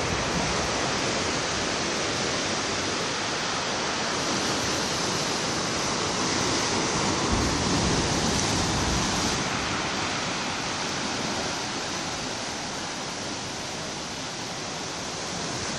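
Ocean swell breaking on the shore: a steady rushing wash of surf that swells a little about halfway through and eases slightly toward the end.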